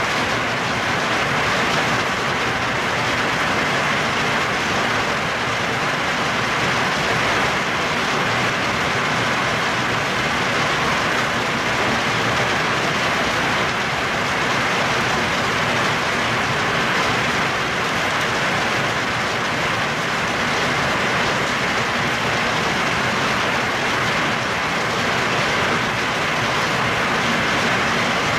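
Heavy hailstorm downpour: rain and hail falling densely and steadily, an unbroken loud hiss that does not let up.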